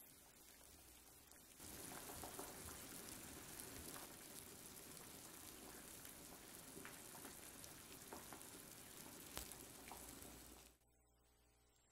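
Hot water in an earthenware pot giving a steady sizzling hiss, with scattered light clicks as plastic-wrapped poached eggs are lifted out; it cuts off suddenly near the end.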